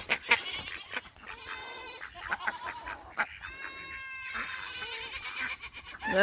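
Goats bleating at feeding time: two drawn-out calls about two seconds apart, with scattered shorter animal calls around them.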